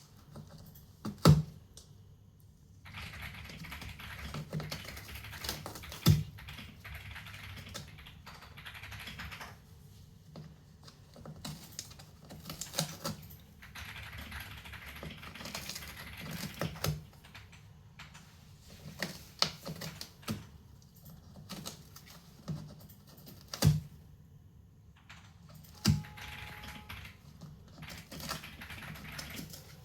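A cat clawing and tearing at cardboard: stretches of rapid, dry scratching that stop and start again, with a sharp knock now and then.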